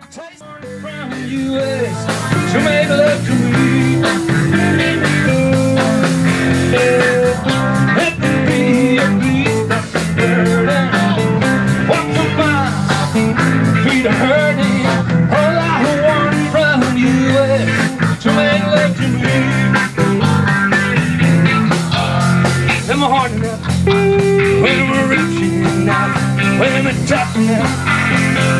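Live rock band playing: electric guitars, bass guitar and a drum kit with a steady beat. It fades in over the first two seconds.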